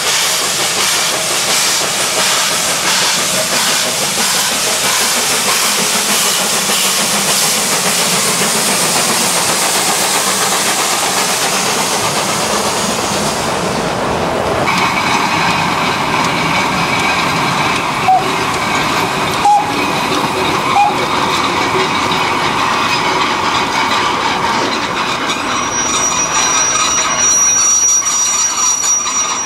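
Narrow-gauge steam locomotive working a freight train uphill, with a dense steady hiss of steam and exhaust. About halfway through this gives way to the clickety-clack and rumble of wooden box wagons rolling past, with a few sharp knocks. Near the end a thin, high, steady wheel squeal comes in.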